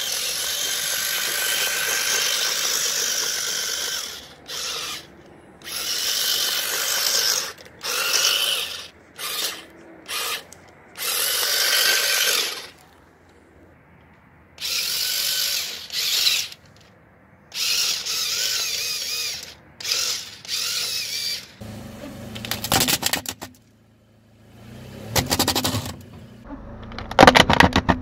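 A string of short bursts of hissing, grinding noise, followed near the end by a car tyre rolling over objects and crushing them, with a low rumble and sharp crackling snaps.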